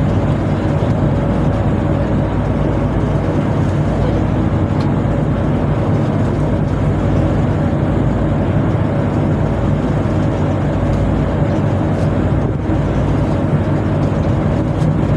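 Steady, loud drone of a tugboat's machinery: a constant low hum with a steady higher tone above it, unchanging throughout.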